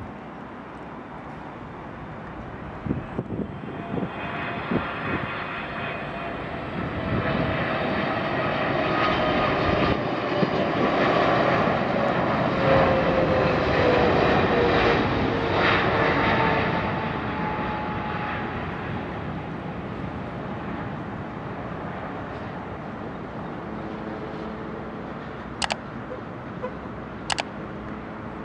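Boeing 777's GE90 turbofan jet engines on final approach, passing close by. The noise swells to a peak about halfway through, with its whine falling in pitch as it goes past, then fades away. A few sharp knocks come near the end.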